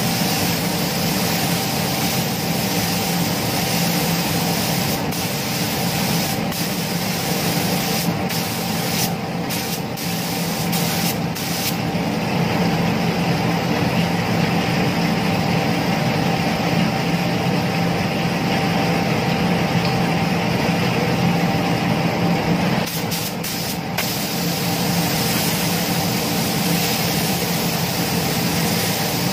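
Compressed-air gravity-feed paint spray gun hissing as it sprays paint onto motorcycle body panels, over a steady hum. The hum thins out briefly a little over three-quarters of the way through.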